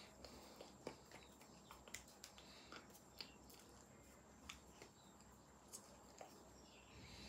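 Near silence with scattered faint clicks and smacks: the lip, tongue and breath sounds and hand movements of a person signing and silently mouthing words.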